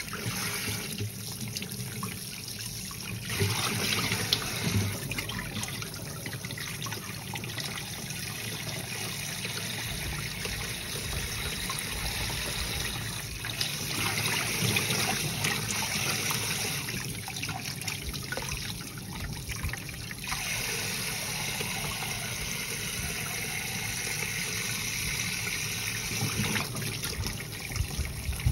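Kitchen tap running into a plastic bowl of water while vegetables are rubbed and rinsed by hand, with splashing. The sound of the water steps up about three seconds in and shifts a few times after that.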